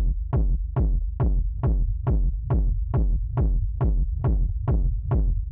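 Electronic dance music playing back from an FL Studio project: a steady beat of about two and a half hits a second over a continuous deep bass.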